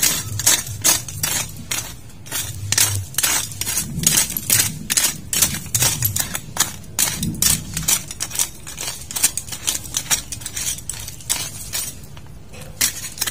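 A rapid, regular series of sharp scraping strikes, about two to three a second, that thins out and stops near the end: the sound of hand weeding work in a garden bed.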